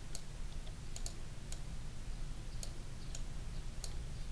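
A handful of sharp, irregularly spaced clicks from a computer mouse and keyboard being worked, over a steady low hum.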